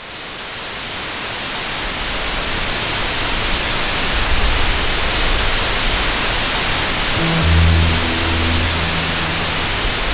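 Analog TV static hiss, fading in and building over the first few seconds. About seven seconds in, low music notes start entering beneath it in short held phrases.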